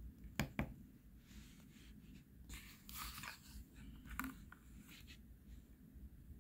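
Handling of a torn cardboard pellet-pack card: two sharp clicks about half a second in, then soft rustling and scraping of the card as it is picked up.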